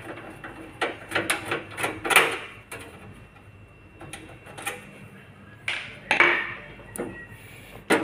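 Irregular clicks and knocks of plastic and metal as a video card is worked loose and pulled from its slot inside a desktop computer case.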